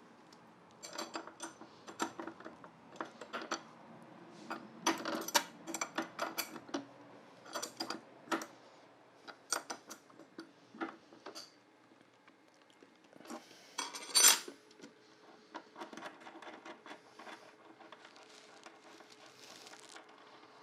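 Irregular metallic clicks and clinks of a wrench and the saw's arbor nut and flange being handled during a blade change on a cordless table saw, with one louder clank about fourteen seconds in, then quieter handling.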